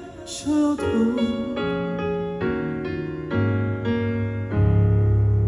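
Piano playing the slow closing chords of a ballad, one chord struck after another, ending on a low chord held and left ringing.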